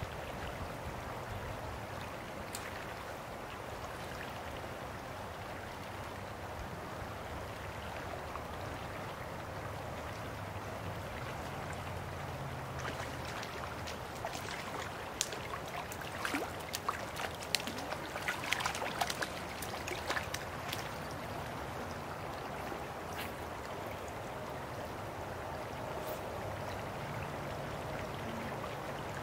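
Creek water flowing steadily around a wading angler. From about 13 to 21 seconds in, a run of short, sharp splashes as a hooked trout thrashes at the surface.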